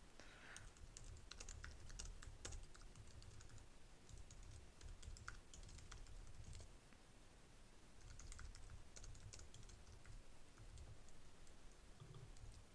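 Faint typing on a computer keyboard: runs of keystrokes broken by short pauses, as a line of code is entered.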